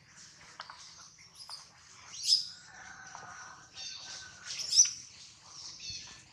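Short, high-pitched animal calls, chirps and squeaks, with two louder sharp calls about two and a half seconds apart.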